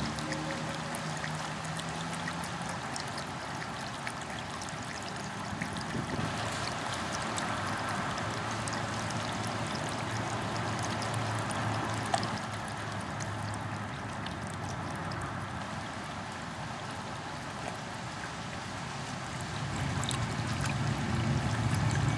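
Water trickling and splashing steadily, like a small garden fountain. A low rumble grows louder near the end.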